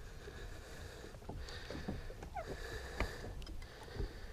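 Small water splashes and drips at the lake surface right beside the boat as a released musky swims off, with a few light knocks over a low rumble.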